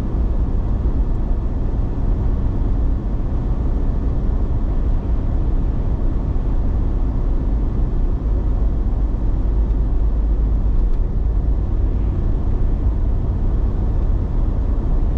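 Steady road and engine noise of a car driving at highway speed, heard from inside the cabin as an even low rumble with no changes.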